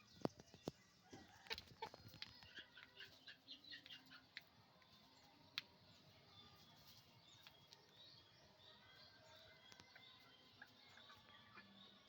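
Flock of chickens, faint: many short, high clucks and chirps overlapping, with scattered sharp clicks, several in the first two seconds and a louder one about five and a half seconds in.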